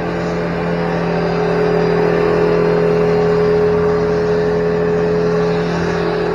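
Portable gas generator running steadily, powering a Cat 1800 PSI electric pressure washer and its water pump: a loud, constant mechanical drone with a steady pitch.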